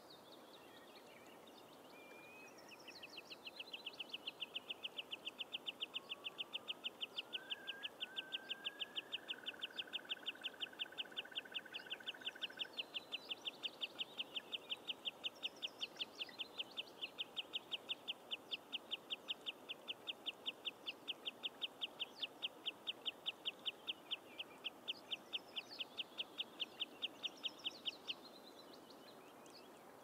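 Bog birds singing. One bird gives a long run of rapid, evenly repeated high notes, several a second, that starts a few seconds in and stops near the end. A second, lower call rises and breaks into a short fast trill partway through, and a few short falling high calls come now and then.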